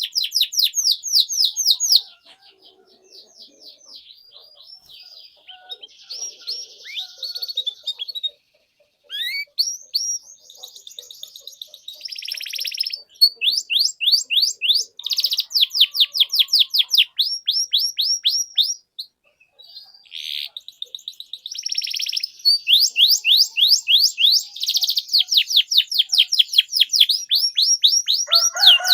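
Domestic canary singing: long trills of rapid, evenly repeated high chirps, broken by short whistled glides and buzzy phrases, with brief pauses about eight and nineteen seconds in.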